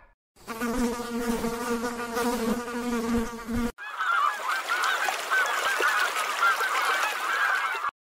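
A flying insect buzzing steadily at one low pitch, cutting off abruptly just over halfway through. Then Canada geese calling in a chorus of many short, overlapping calls.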